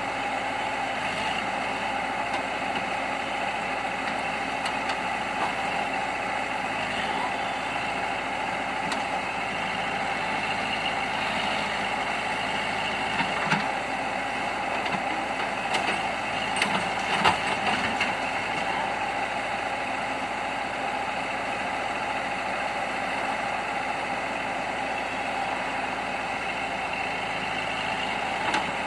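Heavy diesel engine idling steadily, with a few short knocks near the middle.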